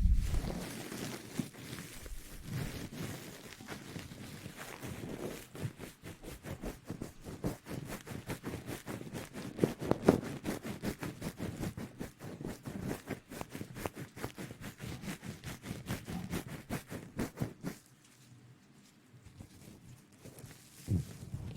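ASMR rustling: a rapid, dense crackling of rubs and scratches close to the microphone, which thins out and goes quieter about eighteen seconds in.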